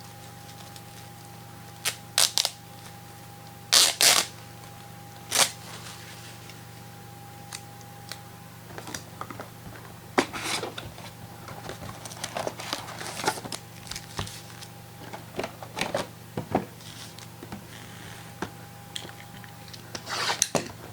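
Trading card boxes and packs being handled and opened on a table: a few sharp clicks and knocks, then a long stretch of irregular rustling and small clicks.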